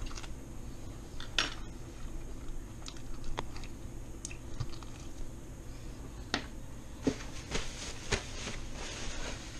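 A person chewing a mouthful of grilled lamb chop, with irregular short clicks and crunches that come thicker over the last few seconds.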